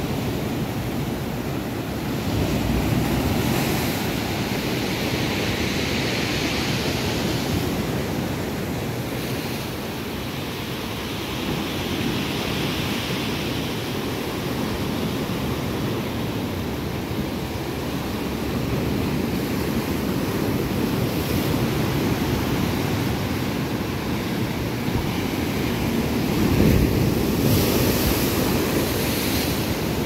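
Sea waves breaking over shoreline rocks and washing back through them: a continuous rush of surf that swells and ebbs, with heavier surges about three seconds in and again near the end.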